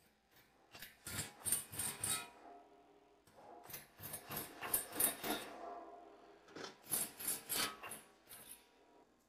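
Three bursts of quick rubbing or scraping strokes, about five strokes a second, each burst lasting a second and a half to two seconds.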